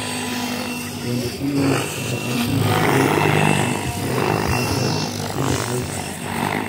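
Radio-controlled model helicopter flying, its motor and rotor making a steady pitched drone that grows louder around the middle.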